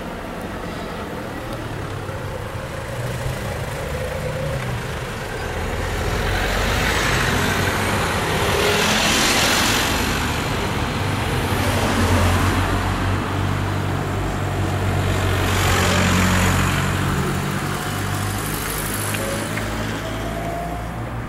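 Street traffic: car engines running, with cars driving past whose engine and tyre noise swells up and fades away, loudest around the middle and again later on.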